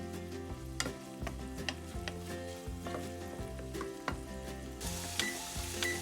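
Food sizzling as it fries in a pan, with background music playing over it.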